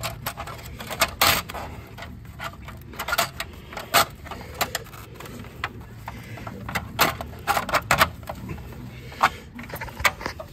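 Plastic hubcap being pushed and knocked onto a steel wheel: irregular sharp clicks and knocks as its retaining clips snap into the rim.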